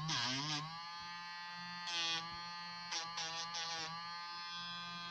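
Battery-powered pet nail grinder's small motor buzzing, its pitch wavering at first and then holding steady. Short scratchy bursts about two seconds in and again around three seconds in as the spinning sanding drum files the dog's claw.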